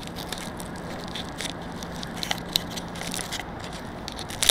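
Scattered light crackles and clicks of the quadcopter being handled close to its onboard camera as its battery wire is tucked away, over a faint steady hum that stops about three seconds in. A louder rustle comes at the very end.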